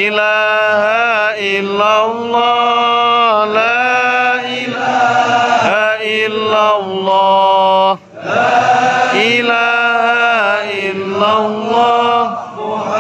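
Men's voices chanting Islamic dzikir in Arabic, a melodic chant with long held notes. There is a brief break about eight seconds in.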